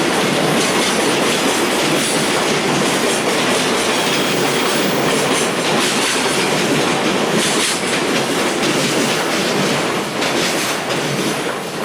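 Container freight wagons rolling past on the rails, a loud steady rumble of steel wheels with clicks from the track, easing off a little near the end.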